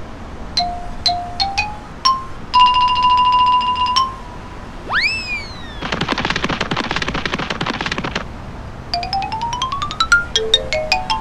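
Retro electronic video-game sound effects: a few short beeps stepping up in pitch, a held beep of about a second and a half, a quick swoop up and down, about two seconds of buzzy rattling, then fast rising runs of notes near the end.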